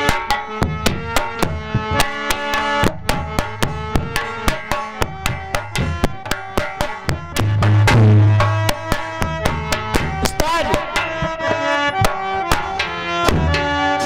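Folk instrumental interlude: a dholak hand drum playing a quick, steady rhythm of about four strokes a second over a held melody line. A deep booming bass stroke rings out about eight seconds in.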